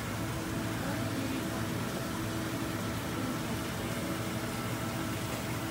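Steady mechanical hum with an even hiss, the running drone of the equipment around a large aquarium tank.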